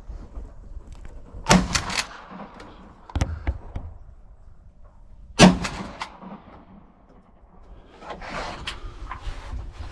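Shotgun shots at a deer: two sudden sharp bangs, about a second and a half in and about five and a half seconds in, the second the loudest. There is a duller knock between them and a rustling noise near the end.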